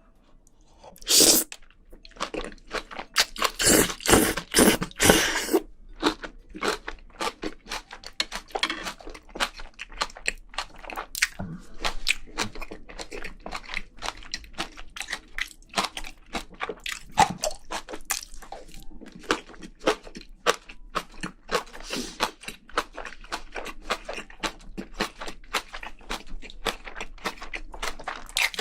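Close-miked chewing and crunching of spicy braised seafood (haemul-jjim), a steady run of quick wet mouth clicks with a few louder crunchy bites in the first several seconds.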